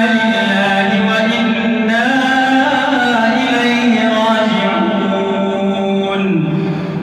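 Solo male Quran recitation (tajweed): the qari's voice holds long, drawn-out melodic notes, stepping up about two seconds in and sliding down near the end before breaking off.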